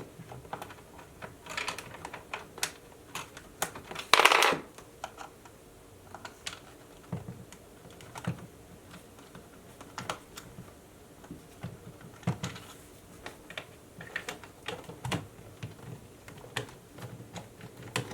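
Scattered light clicks and taps of an Allen wrench working the stock bolts out of an airsoft sniper rifle, with one louder rattling scrape about four seconds in.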